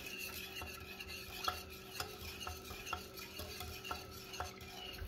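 Wire whisk stirring thin syrup in a stainless steel saucepan, its wires ticking lightly against the pot about twice a second.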